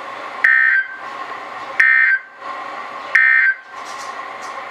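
NOAA Weather Radio SAME end-of-message data bursts. There are three short, buzzy, warbling bursts about 1.3 s apart, the digital signal that marks the end of an alert broadcast.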